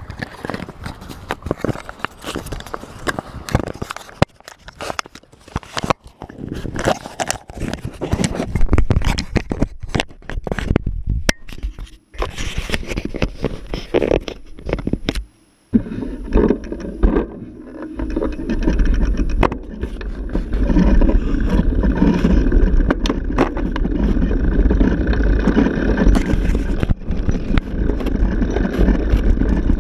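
Clicks and scrapes of an action camera being handled and fitted onto the bicycle, for about the first half. Then the Koga Miyata Superwinner road bicycle rolls over stone paving with a steady rumble and low wind noise on the microphone.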